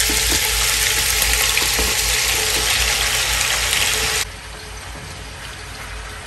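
Cubes of raw beef chuck sizzling as they drop into hot oil in an enamelled cast-iron Dutch oven on high heat, with a few soft knocks as pieces land in the pot. About four seconds in the sizzle drops suddenly to a quieter, steady hiss.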